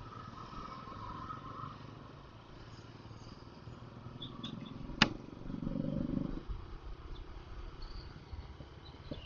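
Motorcycle running while riding on a paved road, heard from the rider's own bike: a low steady engine rumble with road noise. A sharp click comes about five seconds in, followed by a brief louder swell of engine noise.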